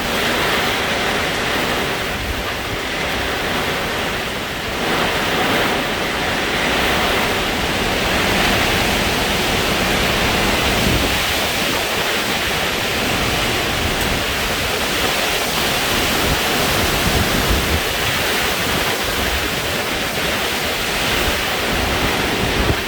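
Hurricane wind and heavy rain rushing steadily, with gusts buffeting the microphone.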